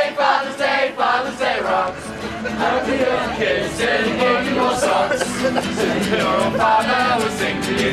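A group of young people singing a song together.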